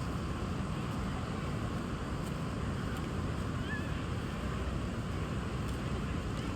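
A steady rushing noise, with one faint short chirp about halfway through.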